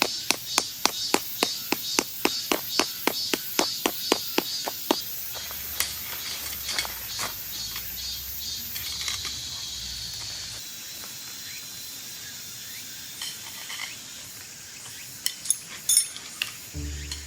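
Rapid, even knocks, about four a second for some five seconds, then a few scattered ones and a short burst of taps near the end, over a steady high insect drone that fades out midway.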